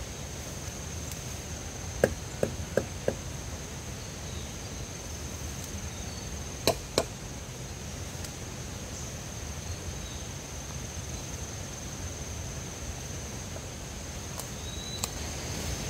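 Sharp strikes on wood, four in quick succession about two seconds in and two more a few seconds later, over a steady low outdoor background noise and a steady high whine.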